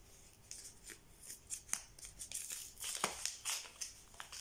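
Paper and card rustling as small scrapbooking packets are handled and opened by hand, with irregular light crinkles and a few sharp ticks.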